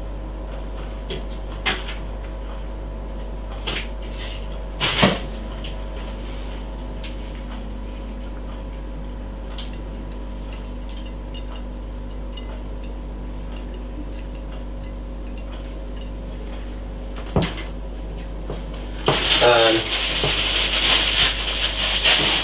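Steady low electrical hum in a kitchen, broken by a few sharp clicks and knocks of dishes or cupboard, the loudest about five seconds in; a voice starts near the end.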